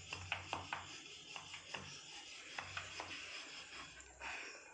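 Wooden rolling pin rolling stuffed paratha dough on a wooden board: soft rubbing, with irregular light clicks and taps as the pin goes back and forth.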